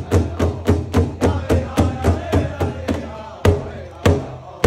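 Pow wow drum group: a large hand drum beaten in a fast, steady beat of about three or four strokes a second, with voices singing over it. A little past three seconds in, the drumming changes to single, louder strokes about two-thirds of a second apart.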